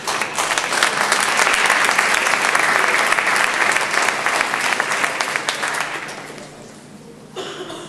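Audience applauding, a dense clatter of many hands that builds in the first second and dies away about six seconds in.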